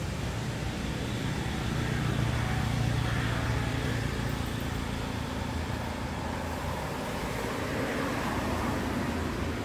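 Steady low outdoor background rumble with a faint hiss over it, a little heavier about two to four seconds in.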